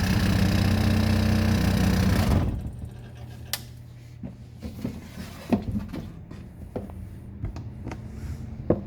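Motorized dust-shaking machine for hand-rolled cigarettes running with a steady hum, then shutting off about two and a half seconds in. Afterwards a faint hum remains, with scattered light clicks and knocks.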